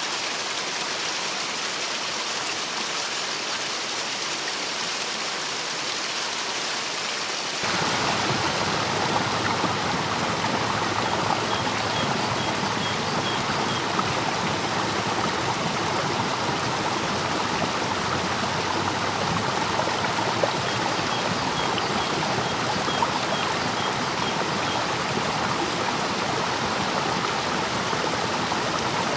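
Rushing white water of a river in spring flood pouring over falls and rapids, a steady, even rush. About seven and a half seconds in it jumps abruptly louder and fuller.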